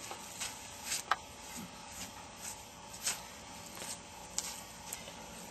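Faint, irregular crackles and rustles of movement on dry, crunchy ground and leaf litter during field butchering of a deer.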